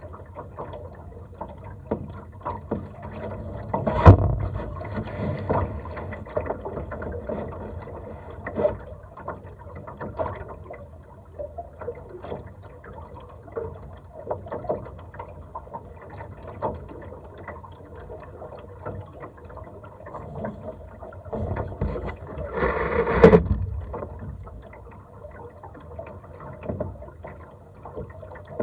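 Laser sailing dinghy moving through the water in light wind: water sloshing along the hull with small knocks and rattles from the boat and its fittings. There is a sharp knock about four seconds in and a louder rush of noise a little over twenty seconds in.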